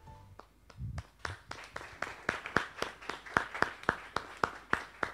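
A run of sharp, separate taps, about three to four a second, starting about a second in.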